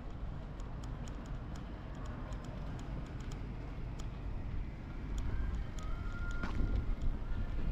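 Street ambience: a steady low rumble, like distant traffic, with scattered light clicks and a brief thin squeal about six seconds in.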